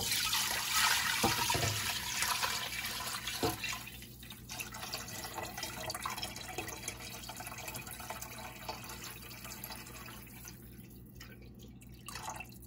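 Chicken broth poured in a stream from one stainless steel pot into another, splashing into the broth already in it. The pour starts suddenly and is loudest at first, then slowly thins. Near the end it breaks up into a few separate drips.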